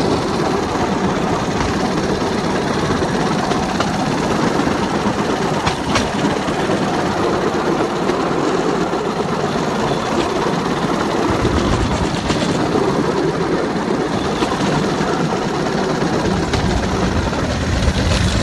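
Bamboo train (norry) running along the rails: its small engine running steadily under the rumble of the wheels on the track, with an occasional sharp clack.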